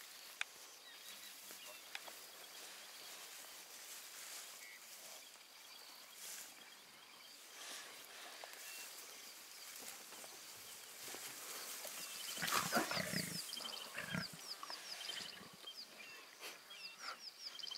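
Lion cub growling over impala scraps, a short rough burst about two-thirds of the way in. A series of short high chirps repeats from then on.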